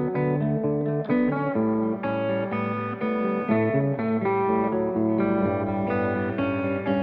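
A band's instrumental passage with no vocals: guitar playing a melody of separate picked notes over a steady low bass line.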